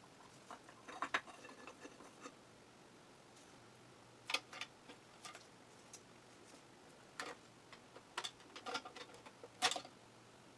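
Irregular light metallic clinks and clicks of tools and clutch parts being handled while a Suzuki RM125 motorcycle clutch is taken apart, the sharpest about four seconds in and near the end.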